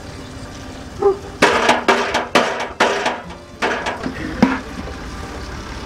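A stainless steel skimming pot on a long pipe handle knocked against the metal of a sorghum-syrup evaporator pan: about eight sharp, ringing metal clanks in the middle few seconds, over a steady hiss from the boiling juice.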